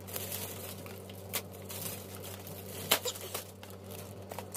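Plastic packaging being handled and crinkled, with a few sharp crackles, the loudest about three seconds in, over a steady low hum.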